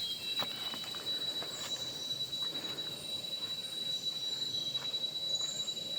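Jungle insects calling: one steady, high-pitched buzzing tone with no break, with a few faint clicks.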